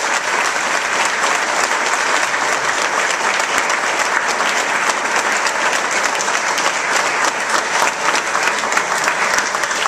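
Large audience applauding, many hands clapping at once in a dense, steady mass of claps.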